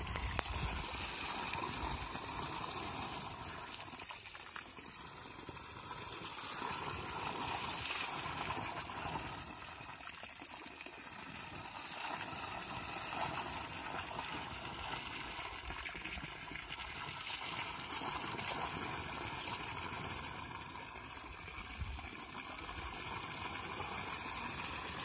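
Water pouring steadily from the open end of an irrigation pipe and splashing onto grass, with a plastic bottle held in the stream being filled.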